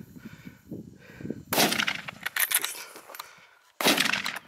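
Two gunshots about two seconds apart, each a sharp crack with a short echoing tail.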